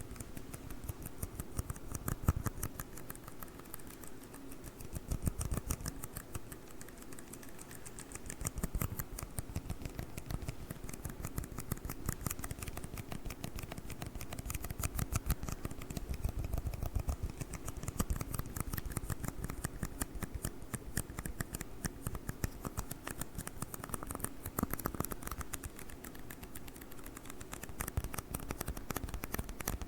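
Tiny red cups tapped and handled close to the microphone: a dense, steady stream of rapid crisp clicks and taps.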